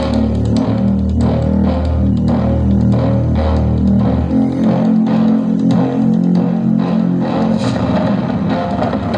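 A song with a steady beat playing loudly through a homemade speaker box driven by a 4440-chip amplifier running on a 12-volt battery pack. The heavy bass drops away about four seconds in.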